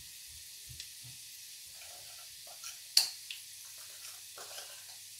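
Spices frying quietly in hot oil in an aluminium pressure cooker: a soft steady sizzle with small scattered ticks. One sharp click comes about three seconds in.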